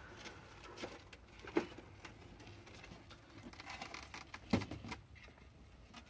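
Reeves' turtles shifting on top of one another, their shells and claws giving scattered light taps and scrapes. The loudest tap comes about four and a half seconds in.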